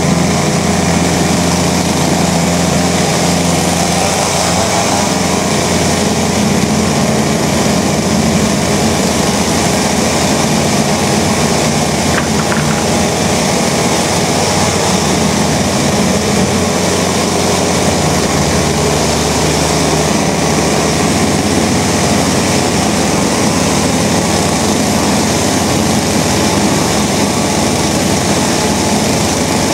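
Small two-stroke ECHO chainsaws running steadily, several engines overlapping in a continuous drone. Their pitches shift about four seconds in and again around eighteen seconds.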